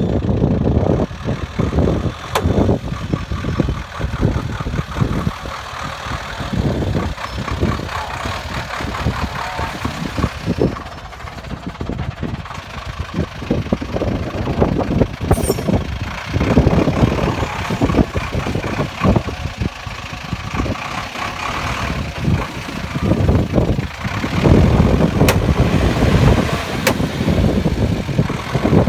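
GAZ-66 truck's engine revving in repeated surges as its arch tyres spin and churn in deep mud, the truck working to climb out of a rut.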